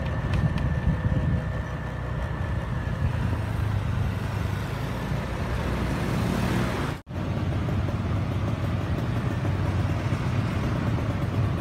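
Steady road noise of riding a motorbike in town traffic: engine hum and rushing air. It breaks off for an instant about seven seconds in, then carries on the same.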